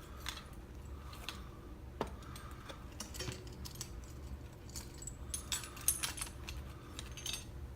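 Small metal tools clinking and rattling as they are picked up and handled, with scattered light clicks and a few brief metallic rings.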